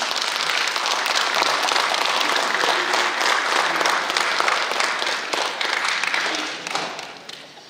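Audience applause: many people clapping at once, steady and dense, fading out near the end.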